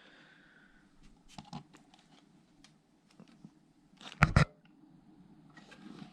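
Small clicks and scrapes of hard computer parts being handled and fitted, with a quick run of three or four sharp clicks about four seconds in.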